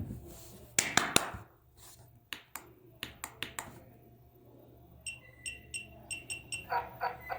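A handful of sharp clicks, then from about five seconds in an electronic toy sounding a rapid string of short, high beeps. Near the end a tune of repeated notes starts up from its small speaker.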